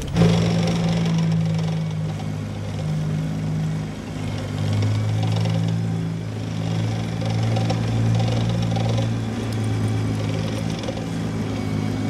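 Dubbed-in engine sound of a German Sd.Kfz. 251 halftrack: a steady low drone that swells and eases slightly in loudness as the vehicle moves past.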